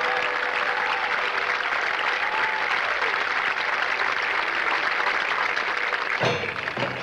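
Stadium crowd applauding and cheering for a drum and bugle corps between musical phrases, with a few voices whooping. Near the end a drum hit sounds and the corps' brass and percussion come back in.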